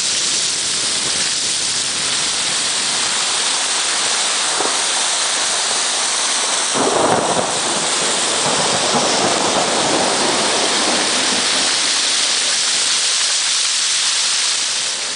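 Heavy storm rain hissing steadily, swelling about seven seconds in into a louder rush as muddy floodwater pours past for several seconds.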